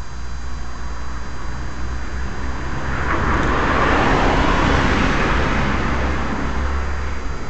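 A car driving past: its engine and tyre noise grows over a couple of seconds, is loudest just past the middle, then fades. Under it runs the trail camera's steady low hum and faint high whine.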